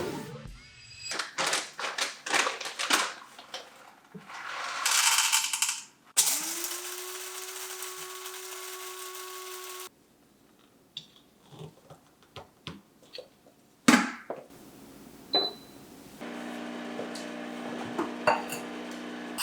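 A run of coffee-making sounds: clicks and clinks of cups and machine parts, a coffee grinder running for about four seconds, then an espresso machine's pump humming steadily near the end.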